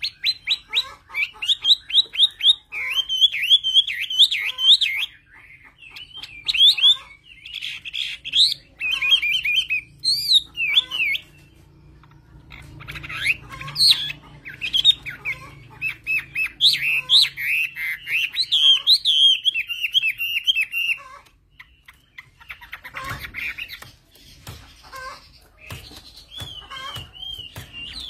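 A wild-caught Chinese hwamei singing loudly: fast, varied runs of whistled and warbled notes in long bursts, broken by a few short pauses, and ending on a repeated whistled phrase.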